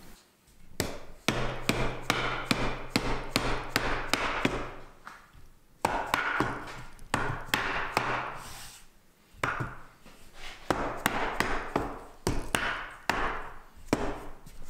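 A mallet knocks new pine splice pieces and a bottom-rail extension home onto an old pine door for a dry fit. The sharp wooden knocks come in quick runs of about three a second, with short pauses between the runs.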